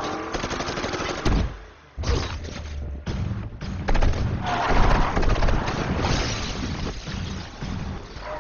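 Car-chase sound effects: a bus scraping and slamming against an SUV's metal body, with several heavy crashes and thuds, the first about a second in and another near 4 s, over a hard-running engine.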